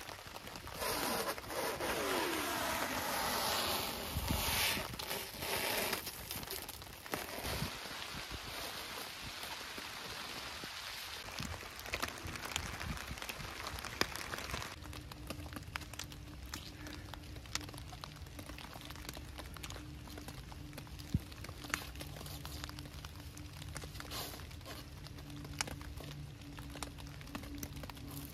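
Rain falling on a stretched clear plastic-wrap sheet, a steady patter with many individual drops ticking on the plastic. It is heavier and louder for the first several seconds.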